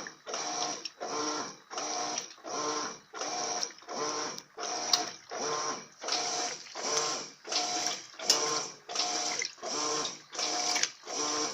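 Electrolux LF80 top-loading washing machine agitating a load of sheets in a high water level: the agitator swings back and forth in a steady rhythm, a little over one stroke a second, each stroke a motor whir with a swish of water. A couple of faint clicks are heard about halfway through.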